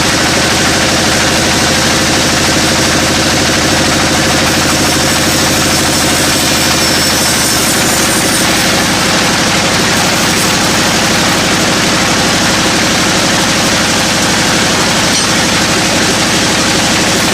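Engine-driven sawmill machinery running at a steady speed, a constant engine hum under an even mechanical noise that does not change.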